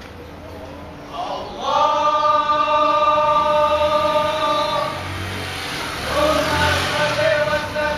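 A group of voices chanting in long held notes: the first swells in about a second and a half in and holds for some three seconds, the next begins about six seconds in. A motorcycle engine rumbles past underneath the second.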